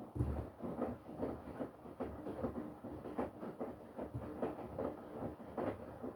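Front-loading washing machine drum starting to turn suddenly, with wet laundry and water sloshing and tumbling in quick, irregular strokes and a low thud at the start.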